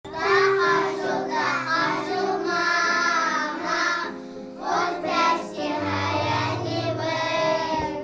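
A group of young children singing a song together in Ingush, with instrumental accompaniment beneath their voices.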